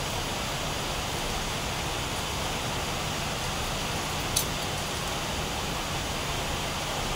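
Steady rushing noise, even across the whole range, with one sharp click a little over four seconds in.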